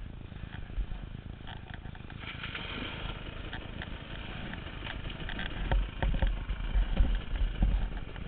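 KTM dirt bike engine running while the bike crawls over loose rocks, with a steady rumble and repeated knocks and rattles from the chassis and tyres hitting stone. The knocks come heavier and louder in the last few seconds.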